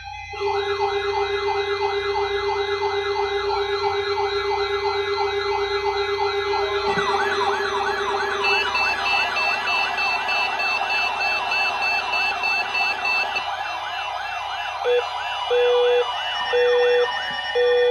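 Weather alert radio alarm set off by the NOAA Weather Radio required weekly test: several warbling siren tones overlapping, with more warble joining about seven seconds in. From about fifteen seconds a low tone beeps on and off about once a second.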